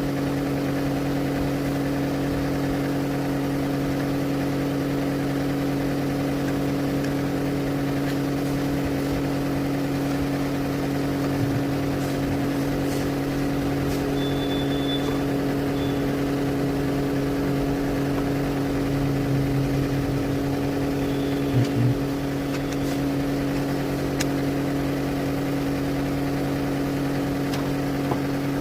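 A machine humming steadily at an even pitch, with a few faint ticks and a brief louder bump near the end.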